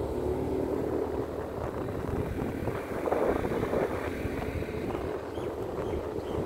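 Motor scooter engine running steadily while riding along a road, with wind rushing over the microphone.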